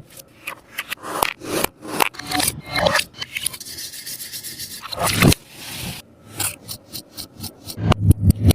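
A sticky taba squishy being squeezed and pressed by hand, giving rapid, irregular crinkling and tacky crackles, with a smoother rub between about three and a half and five seconds in.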